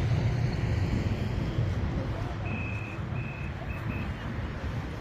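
Street ambience of road traffic rumbling, with wind on the microphone. About halfway through comes a quick run of four short, high electronic beeps.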